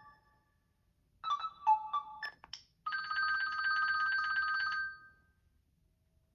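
Gigaset Comfort 552A cordless phone playing its ringtones. About a second in, a short melody of quick bell-like electronic notes plays. It is followed by about two seconds of a rapid, warbling electronic ring trill, which stops a little before the end.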